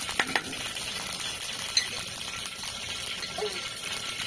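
Cooking fat sizzling as it melts in a hot pan, a steady hiss, with two sharp spoon clicks against the pan just after the start.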